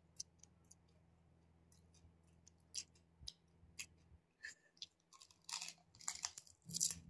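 Faint chewing and crunching of crisp, hollow fuchka (pani puri) shells being eaten, heard as scattered short crackles, with a few longer crunches near the end.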